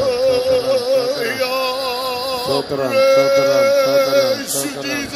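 A congregation praising God aloud all together, many men's and women's voices overlapping, some held on long, slightly wavering tones close to singing.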